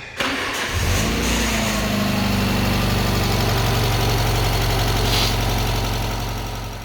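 Alfa Romeo engine turned over by the starter and catching within about a second, flaring briefly, then idling steadily. The sound fades out near the end.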